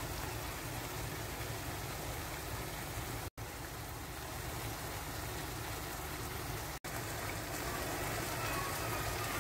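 Diced eggplant, onion and tomato in tomato paste simmering in a frying pan, a steady bubbling hiss that breaks off for an instant twice.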